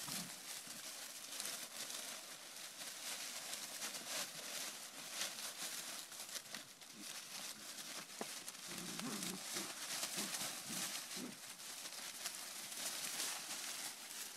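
Dry leaves rustling and crunching steadily as golden retriever puppies play and tumble in them, with a few short low sounds about nine to eleven seconds in.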